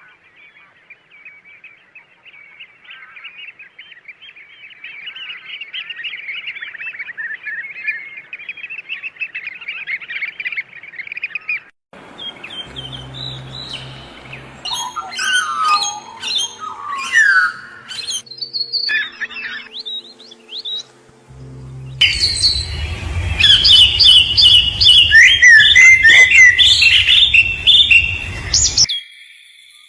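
Birds chirping and calling: a rapid, steadily building twitter at first, then after a sudden cut about twelve seconds in, more varied calls over a low hum, growing loudest before stopping abruptly near the end.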